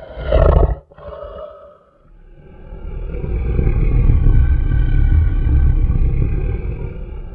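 A big cat roaring: a short, loud roar at the start, then one long roar that swells and fades away near the end.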